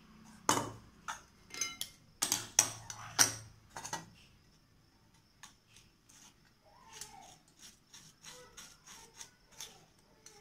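A spoon scraping and knocking against a stainless-steel mesh strainer as thick paste is pressed through it: a quick run of sharp metal clinks in the first few seconds, then fainter scrapes and ticks.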